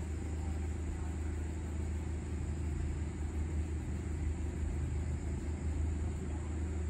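Steady low background rumble with a faint high steady tone above it, unchanging throughout.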